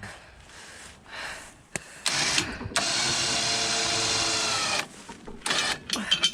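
Electric winch motor on a log arch running for about three seconds with a steady whine that sags slightly in pitch as it lifts a heavy log. Chain clinks and rattles follow near the end.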